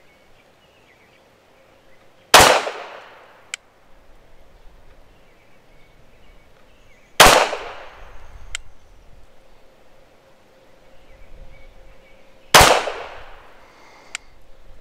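Canik TTI Combat 9mm pistol fired three times in slow, aimed fire about five seconds apart, each shot ringing out and fading. A faint sharp click follows each shot about a second later.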